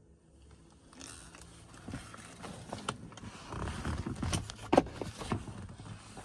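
Irregular clicks, knocks and rustling, the sharpest knock a little under five seconds in.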